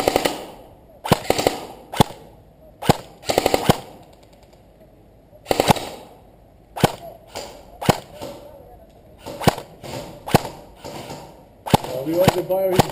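Airsoft guns firing: sharp single shots and short rapid bursts of several rounds, coming every second or two, with the quickest burst about three and a half seconds in.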